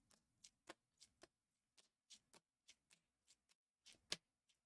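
Donruss Optic basketball trading cards being flicked off a stack one at a time, giving faint, irregular clicks about three to four a second, with a sharper click near the end.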